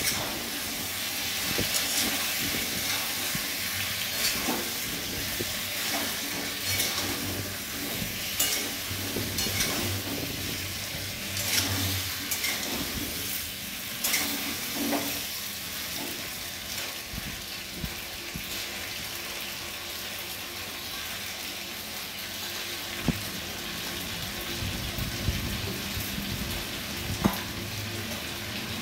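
Potato chunks sautéing in oil in an aluminium kadai with a steady sizzle. A steel spatula scrapes and knocks against the pan now and then as they are stirred.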